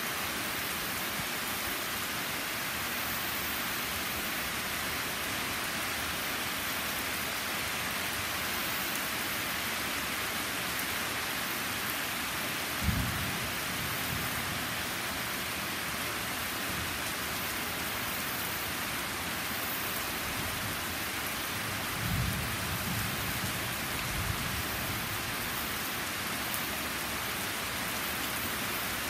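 Steady heavy rain pouring on a stone patio and trees. A short, sharp low rumble of thunder comes a little under halfway through and is the loudest moment, and more low rumbles follow about three-quarters of the way in.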